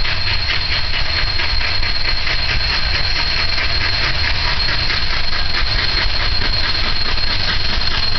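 Union Pacific No. 844, a 4-8-4 Northern steam locomotive, approaching under steam: a rapid, even chuffing of the exhaust over a low rumble. A thin, steady high-pitched squeal runs underneath.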